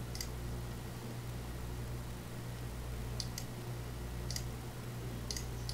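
Computer mouse clicking, about six short clicks, two of them in quick pairs, over a steady low hum.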